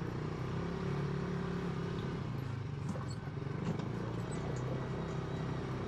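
Off-road buggy's engine running steadily as it drives along.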